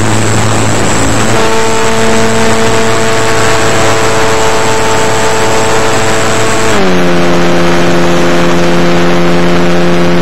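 A radio-controlled plane's motor and propeller running in flight, heard through the plane's own onboard camera microphone: a loud rush of propeller wash and wind with a steady whine. The whine drops to a lower pitch about seven seconds in.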